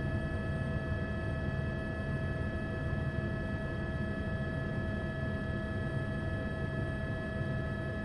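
News helicopter engine and rotor noise: a steady low rumble with a constant whine above it.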